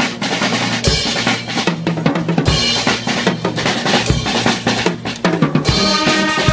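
Drum kit played fast in a solo passage, with bass drum, snare, toms and cymbals in rapid strokes. Brass band instruments come in near the end.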